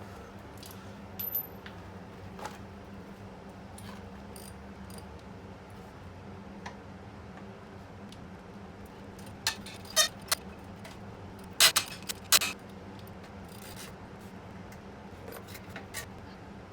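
Metal tools and exhaust fittings clinking and knocking now and then while a motorcycle silencer is unbolted, with a cluster of louder, sharp clinks a little past halfway. A steady low hum runs underneath.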